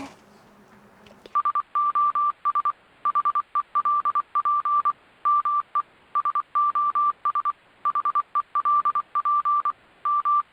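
A single-pitched electronic beep tone keyed on and off in irregular short and long beeps over a faint hiss. It starts about a second and a half in and cuts off abruptly at the end.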